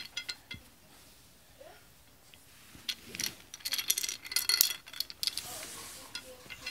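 Painted wooden beads of a bead-maze toy clacking against each other and the wire loops as they are pushed along, a few clicks at the start, then a dense rattle of clicks from about three to five seconds in.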